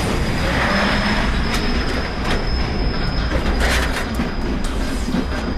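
Train running along the rails: a loud rumble and rattle of the wheels on the track, with a thin steady high whine over it and a few sharp clacks.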